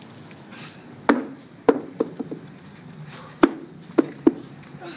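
A rubber ViPR training tube being tossed and knocking against asphalt: a series of sharp knocks, five loud ones with a few smaller ones between them.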